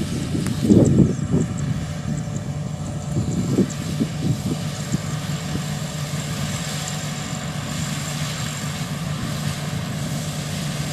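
Combine harvester's diesel engine running steadily, with a few low bumps in the first few seconds.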